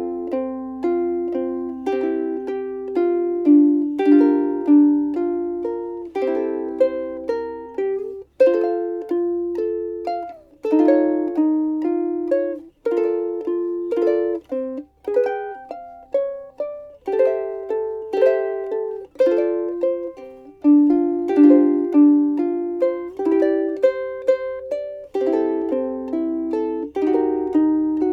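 Seilen SLVS-810 vintage-style soprano ukulele with an all-Brazilian-rosewood body, played solo: plucked melody notes over strummed chords, each note ringing and decaying between strokes.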